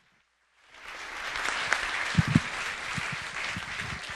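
Audience applauding in a hall, the clapping starting abruptly just under a second in, with a couple of low thumps about two seconds in.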